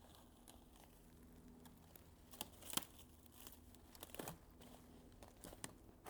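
Near silence with faint rustling and a few short, sharp crackles, the clearest around the middle.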